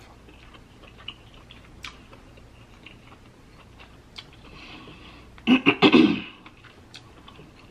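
Close-up mouth sounds of someone eating spicy king crab meat: soft chewing clicks, then a louder cluster of lip smacks and sucking a little over five seconds in as she licks sauce off her fingers.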